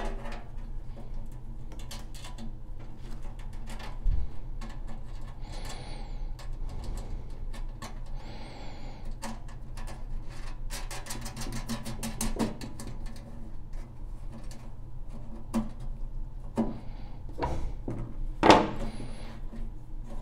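Handling noise from working inside a steel ammo can on a wooden bench: scattered knocks, clicks and rustles, with a rapid run of clicks about eleven seconds in and a sharp knock near the end that is the loudest. A low steady hum runs underneath.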